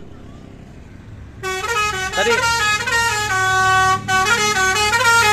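Tour bus's multi-tone musical horn, the telolet horn, starting about a second and a half in and playing a loud tune of stepped notes over the low hum of the bus.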